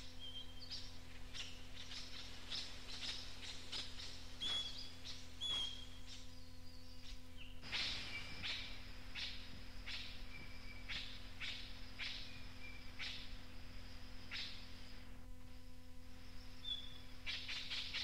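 Australian king parrots calling: short, sharp screeching calls repeated again and again, mixed with a few brief clear whistled notes, with a quicker run of calls near the end. Under them runs the steady hum and hiss of an old cassette recording.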